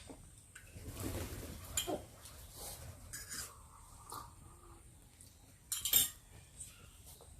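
Eating utensils clinking and scraping against bowls during a meal, a few scattered light clicks with one sharper, louder clink about six seconds in.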